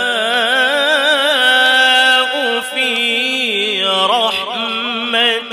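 A man reciting the Quran in the melodic tajweed style, drawing one phrase out on long held vowels with quick wavering ornaments, moving to a new syllable about four seconds in.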